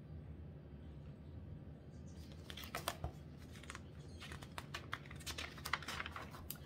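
Paper pages of a picture book being handled and turned: a scatter of faint rustles and small clicks starting about two seconds in.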